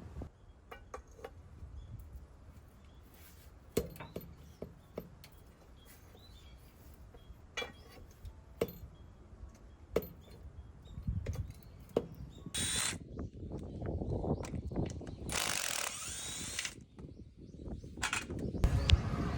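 Hand tools working on a heavy truck's transmission during disassembly: scattered sharp metallic clicks and ratchet-like clicking, growing busier in the second half, with two short louder noisy bursts about two-thirds of the way through.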